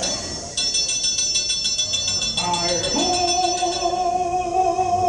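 The mine scene's show soundtrack on the Seven Dwarfs Mine Train: a rapid tinkling of high chimes and bells, then about three seconds in a singing voice holds one long note.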